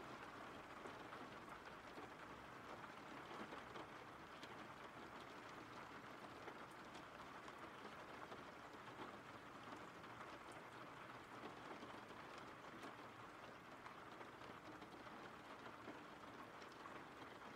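Faint, steady rain falling, with scattered drops ticking.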